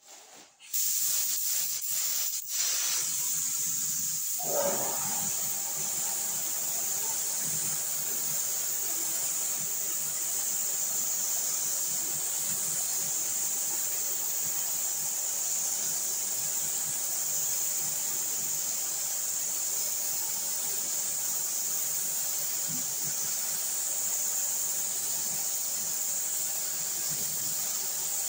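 Compressed-air spray gun hissing steadily as it sprays filler primer onto a car hood. A few short clicks come just before the hiss starts, about a second in.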